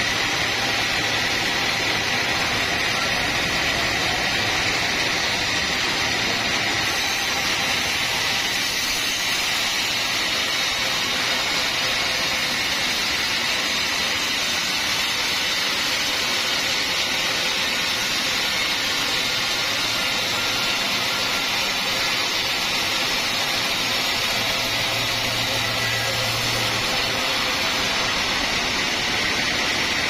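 Vertical band sawmill running and its blade sawing lengthwise through a large teak log: a steady, high, hissing machine noise that holds evenly throughout.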